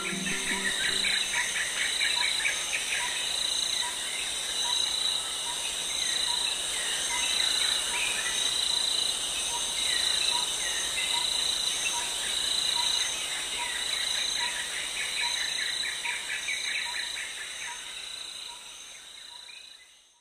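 Crickets and other insects chirping in steady, evenly pulsing trills, with birds singing over them; the whole soundscape fades out at the end.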